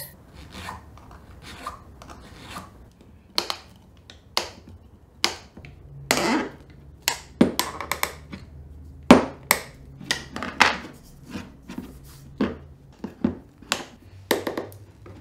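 Irregular sharp clicks, knocks and scrapes of hard 3D-printed plastic press parts being fitted together and set down on a plywood workbench, with a long hand tool worked inside the bore of a printed handle.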